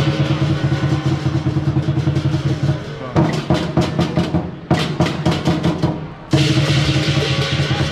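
Lion dance percussion band, a big drum with cymbals and gong, playing a dense continuous roll; a little past a third of the way in it breaks into separate accented strikes with short stops, then the full roll comes back near the end.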